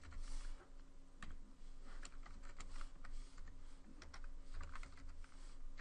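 Computer keyboard being typed on: an irregular run of light key clicks.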